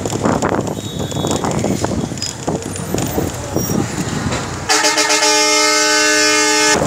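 Busy street traffic noise, then, about two-thirds of the way in, a vehicle horn sounds one long steady blast of about two seconds that cuts off abruptly.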